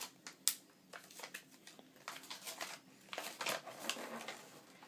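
Paper instruction leaflet being handled and unfolded: irregular rustling with scattered light clicks and taps.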